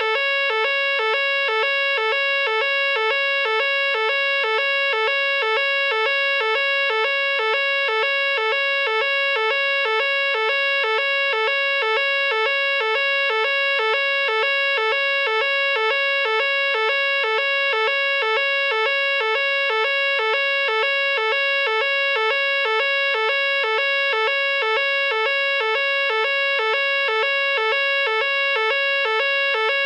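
Nugelec fire alarm sounding its evacuation signal: a loud, steady two-tone pattern that alternates between a higher and a lower note about twice a second, repeating without a break.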